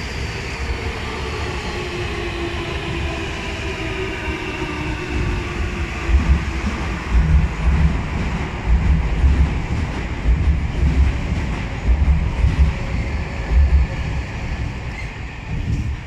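Keio Inokashira Line electric commuter train passing over a steel girder bridge. In the first few seconds a motor whine slowly falls in pitch. Then the wheels clatter and thump repeatedly as the cars roll by, and the sound fades near the end.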